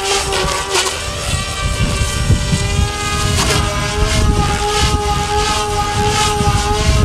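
SAB Goblin radio-controlled helicopter flying aerobatics. A steady high whine from its motor and drivetrain shifts pitch slightly, dipping briefly about halfway through, while the rotor blades swish in repeated swells.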